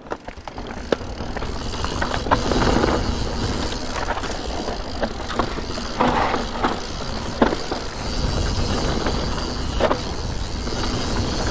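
Santa Cruz Nomad 4 mountain bike rolling down a rough dirt trail: a steady rush of tyres on dirt and leaves, broken several times by sharp clacks and knocks as the bike goes over bumps.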